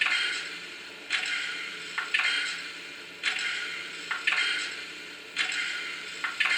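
Sound decoder of a TT-scale G 8.2 (BR 56) steam locomotive model playing slow steam exhaust chuffs through its small speaker. Each chuff is a hiss that fades, coming about once a second and sometimes in quick pairs, as at a slow start.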